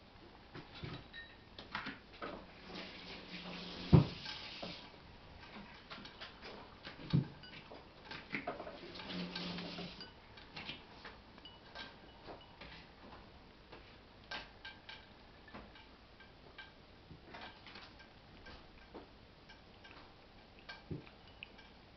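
Cats eating from ceramic dishes: small clicks of chewing and licking and the dish knocking on its surface, with a sharp knock about four seconds in and another about seven seconds in. Two spells of a low hum, each a couple of seconds long, come around the knocks.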